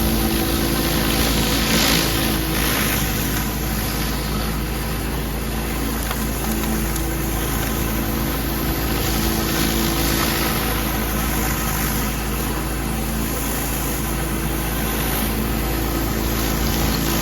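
Gas-engine pressure washer running steadily, with the hiss of its high-pressure water spray that swells and eases as the spray moves.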